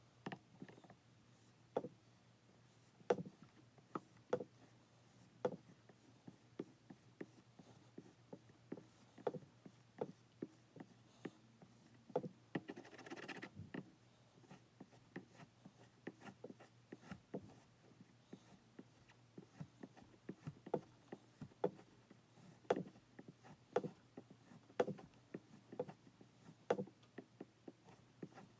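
Benchmade Adamas push dagger's 440C steel blade being worked on a strop: a run of light taps and short scraping strokes, roughly one a second, with a longer rubbing swish a little under halfway.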